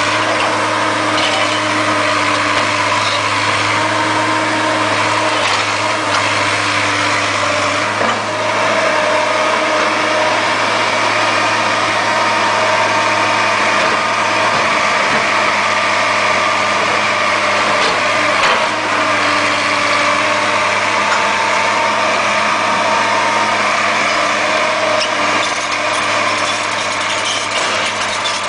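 Diesel engine of an L&T tracked hydraulic excavator running steadily as the machine digs and swings its bucket, its pitch shifting slightly a couple of times as the load changes.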